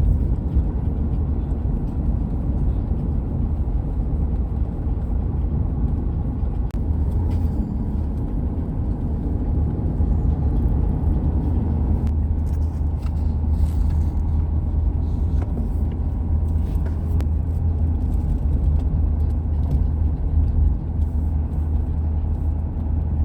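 Steady low rumble of a car in motion: engine and road noise that holds even throughout, with no rises or falls.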